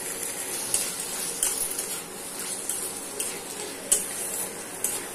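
Metal spatula scraping and clinking against a steel kadai while vegetables are stirred, over a steady sizzle of frying in oil. The clinks come irregularly every half second or so, the sharpest about four seconds in.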